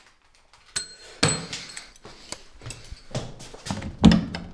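A run of knocks and clatter as objects are handled. There are metallic clinks about a second in and a heavy thump, the loudest sound, about four seconds in.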